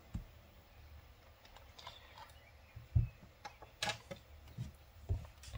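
Light handling noises from a hand moving a fountain pen and paper: a few scattered soft taps and clicks, with a dull knock about three seconds in and the sharpest click just before four seconds.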